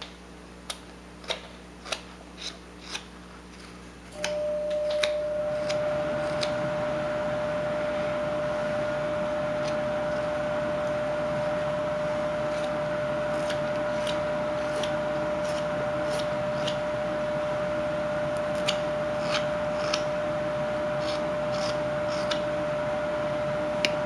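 Whittling knife slicing chips from a wooden block, short sharp snicks every second or so. About four seconds in, a steady mechanical hum with a clear tone starts and continues under the cuts, louder than them.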